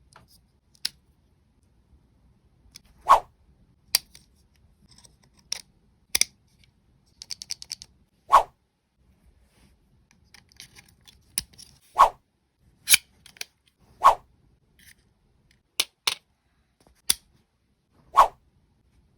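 Sharp clicks and clacks of the plastic and metal parts of a Marushin Walther PP model gun kit being handled and fitted together during assembly, a few seconds apart. About seven seconds in there is a quick rattling run of small clicks.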